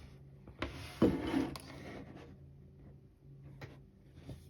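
Handling noise of a soldered keyboard circuit board being picked up and set down: a loud clatter and scrape about a second in, with a few light clicks around it.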